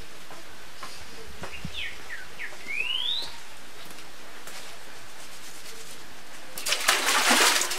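Birds chirping, with short calls that slide up or down in pitch. About a second before the end, water splashes loudly, as of hands washing in a concrete washbasin.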